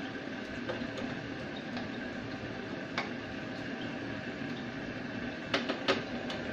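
Ground pork cooking in a stainless steel saucepan and being stirred with a spatula: a steady sizzle, with a click of the utensil on the pan about halfway and a few sharper knocks against the pan near the end.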